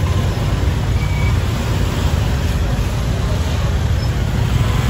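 Small motorbike and scooter engines running at low speed close by, with people talking in the background.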